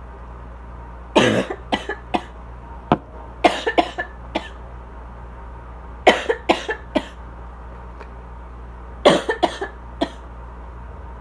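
A woman's asthma cough: four bouts of short, rapid coughs a few seconds apart, over the steady hum of a loud air conditioner.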